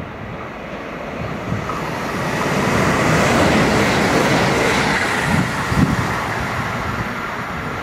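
DB Class 440.2 electric multiple unit passing through at speed: a rush of wheels and air that swells as it nears, peaks as it goes by, then fades as it draws away, with a few short wheel thumps near the tail.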